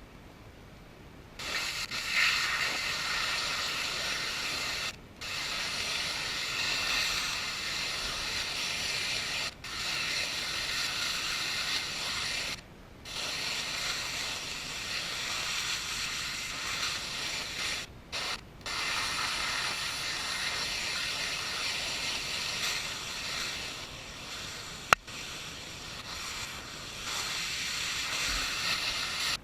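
High-pressure water spray hissing from a Whisper Wash Classic pressure-washer surface cleaner working on concrete. It starts about a second and a half in and is steady, with faint steady tones in the hiss. It cuts out abruptly for a moment several times, and there is a single sharp click near the end.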